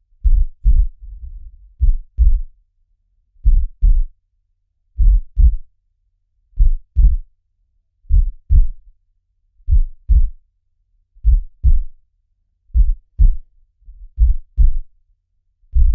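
Slow, steady heartbeat: paired low lub-dub thumps, one beat about every second and a half. A faint low rumble runs between some of the beats.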